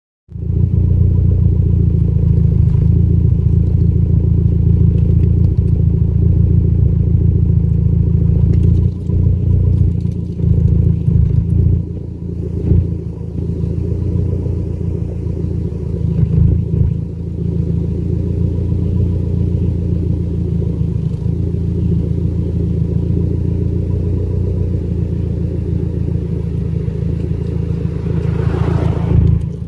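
Engine idling with a slight misfire, its low rumble dipping unevenly now and then. A short rising-and-falling whine near the end.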